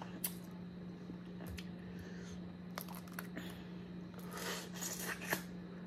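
Boiled crawfish being peeled and eaten by hand: faint scattered shell clicks and crackles, with a louder patch of mouth and eating noises about four and a half to five and a half seconds in, over a steady low hum.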